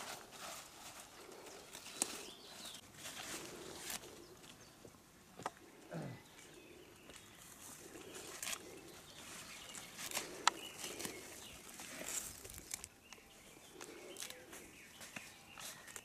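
Faint rustling and snapping of broad kaldirik (Trachystemon orientalis) leaves being picked and handled by hand, in many small irregular crackles, with birds calling in the background.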